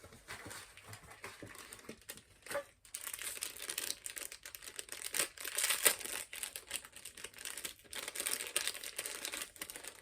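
Packaging crinkling and rustling in the hands as an item is unwrapped, a dense run of small crackles with a short lull about two and a half seconds in.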